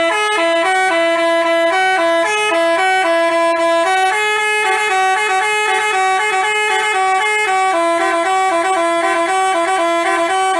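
Basuri telolet bus horn playing a quick, loud tune of reedy notes, changing several times a second, sometimes two tones at once.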